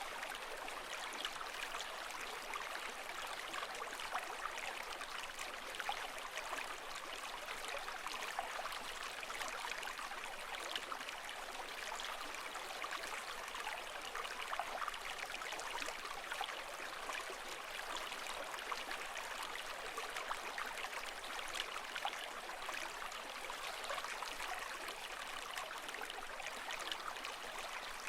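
Water running and trickling steadily with a fine splashy flicker, an even wash with no rise and fall of breaking waves.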